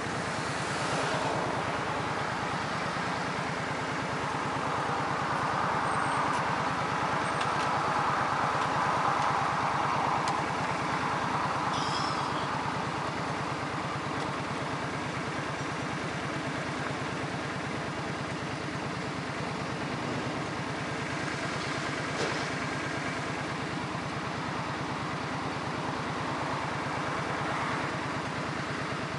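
An engine running steadily, with a rushing noise that swells for several seconds early in the stretch and a couple of faint clicks.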